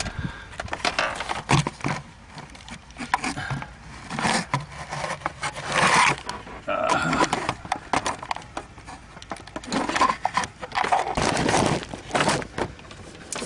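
Hands working at the plastic hose and wiring connectors on a BMW X5 rear air suspension pump: irregular scraping, rustling and clicking of plastic parts, with denser stretches of scraping about halfway through and near the end.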